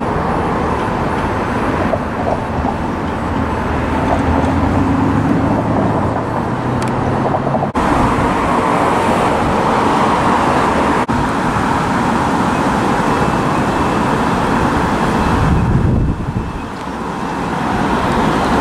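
Articulated electric trams running along street tracks, their rolling rumble mixed with passing cars and road traffic. The sound changes abruptly twice where shots are cut together.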